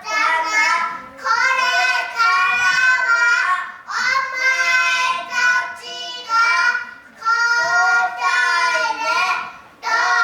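Young kindergarten children singing a song, in phrases of two to three seconds with short breaks between them.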